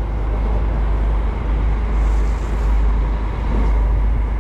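Steady low rumble of a sport-fishing boat's engine, with a constant noise of running sea and wind above it.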